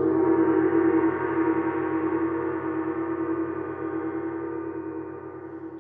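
A single gong stroke, a deep metallic tone that rings on with a slow pulsing wobble and fades gradually over about six seconds, sounding as a chapter-break cue.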